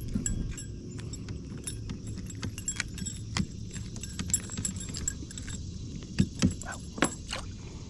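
Light metallic clinking and clicking, many small ticks with a couple of louder clinks near the end, as a fishing lure and its hooks are handled to unhook a small bass. A steady low rumble runs underneath.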